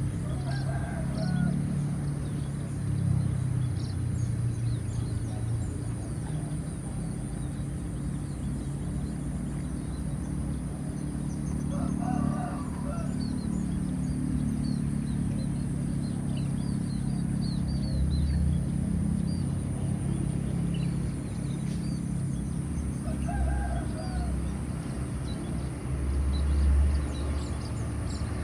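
A rooster crowing three times, about eleven seconds apart, over a steady low rumble.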